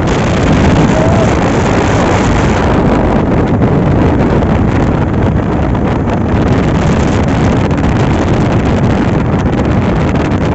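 Loud, steady wind rumble buffeting the microphone, with a low vehicle-like drone underneath.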